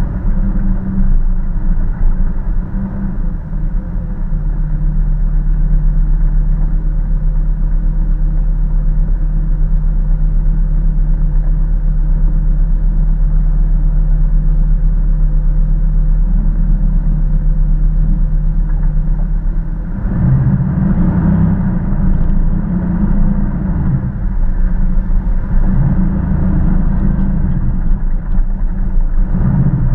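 Jeep Wrangler engine and drivetrain heard from on the vehicle while it drives a sandy dirt trail: a steady low drone at an even speed, turning rougher and more uneven about two-thirds of the way through as it works over bumpier ground.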